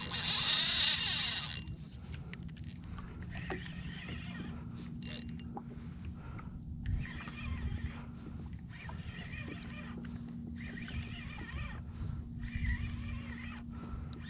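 Fishing reel drag buzzing as a hooked fish, which the angler takes for a wahoo, pulls line off; the loudest run fills the first second and a half, then shorter bursts follow one after another with brief gaps.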